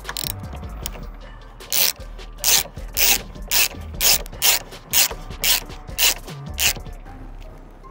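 Ratchet wrench and socket tightening the nut on an engine mount: about a dozen short ratcheting strokes, roughly two a second, starting about two seconds in.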